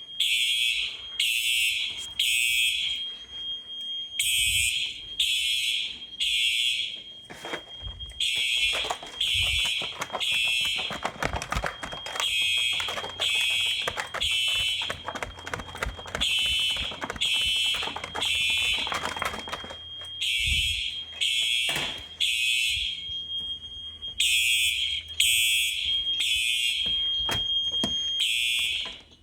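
Simplex electronic fire alarm horns sounding in alarm in the temporal code-3 pattern: three short blasts, a pause, repeating, over a steady high tone. They cut off abruptly near the end when the alarm is silenced.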